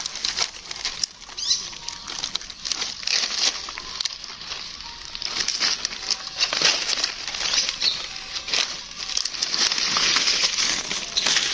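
Continuous rustling and crinkling with many small irregular clicks and scratches.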